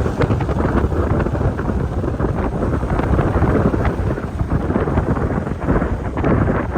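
Strong wind buffeting the microphone: a loud, steady low rumble with frequent crackles through it.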